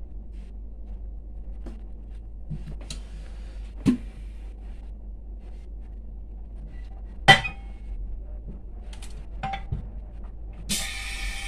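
Scattered clicks and clinks of hard objects being handled: a laminating machine's chamber door is opened and a phone screen is handled. The loudest is a sharp clink with a brief ring about seven seconds in. A steady hiss starts about a second before the end.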